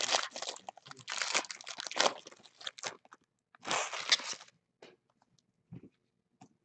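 Clear plastic wrapping on a trading-card box being torn and crumpled by hand. It crackles densely for about three seconds and again briefly around four seconds in, then gives way to a few light taps.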